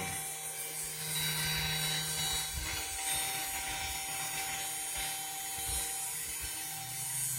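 Mini CNC milling machine running a test toolpath with no cutting bit: the spindle spinning and the axis drives moving the head, a steady mechanical whine with a few short low knocks.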